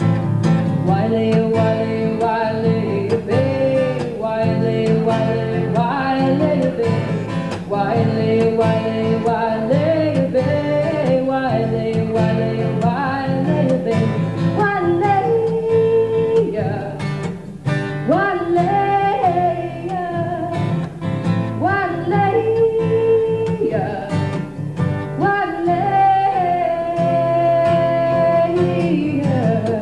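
A woman singing a folk song over her own strummed acoustic guitar, with long held notes.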